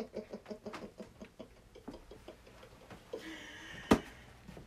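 A man's mocking laughter, a quick 'ha-ha-ha' that tapers off over the first second or so, then a single sharp smack near the end.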